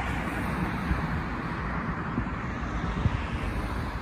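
Road traffic noise, a steady hiss and low rumble of passing vehicles.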